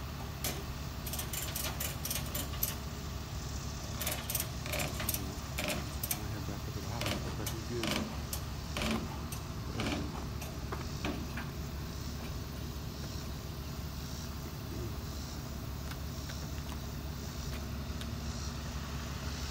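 Flatbed tow truck's engine idling steadily, with a run of light metallic clicks and jingles over the first half or so.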